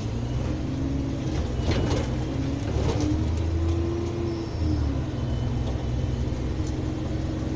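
MAN NL223 city bus's diesel engine running while the bus stands at a stop, heard from inside the cabin as a steady low drone with a few light rattles.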